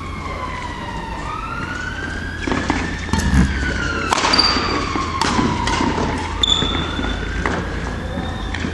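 A siren wailing, its pitch slowly rising and falling. Several sharp smacks and a couple of brief high squeaks come from badminton play between about two and a half and six seconds in.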